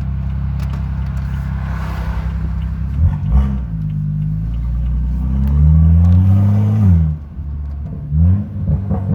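Vehicle engine idling steadily, then revved: two quick blips about three seconds in, a longer rev that climbs and holds for about a second and a half before dropping back to idle, then more quick blips near the end.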